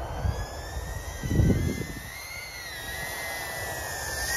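Happymodel Mobula7 75 mm FPV whoop quadcopter in flight: its four 1102 9000KV brushless motors spin 40 mm three-blade propellers in a steady high whine that wavers slightly in pitch. A brief low rumble comes about a second and a half in.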